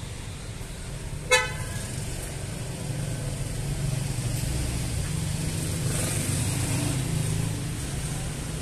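A single short vehicle horn toot about a second in, over a steady low traffic rumble that swells in the middle.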